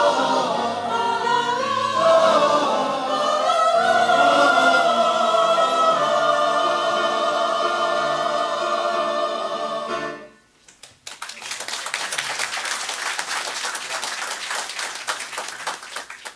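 Mixed choir of men and women singing a Greek patriotic song, ending on a long held chord that stops about ten seconds in. After a brief pause the audience breaks into applause.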